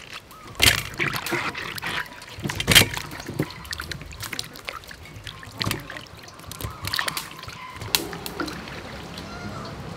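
Hands washing corn cobs, a carrot and greens in a steel bowl of water: irregular sloshing and splashing with scattered sharp knocks.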